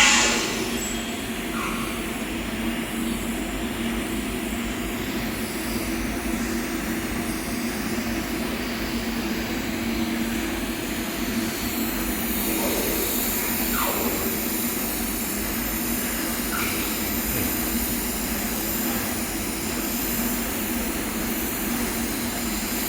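Steady electrical hum and hiss of a TIG welder running during a stainless steel filling pass, opening with a single sharp crack.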